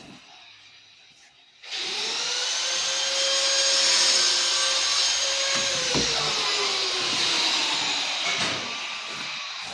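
A small electric motor starts suddenly after a short quiet spell and runs with a steady whine, then its pitch drops about six seconds in as it slows and fades.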